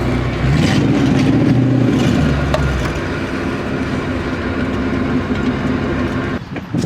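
Car engine running at low speed as the car backs slowly into a parking spot, stopping abruptly about six and a half seconds in, followed by a short knock.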